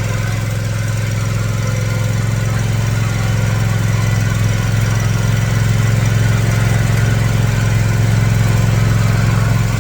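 Riding lawn mower engine running steadily while driving along, a constant low hum that swells slightly partway through.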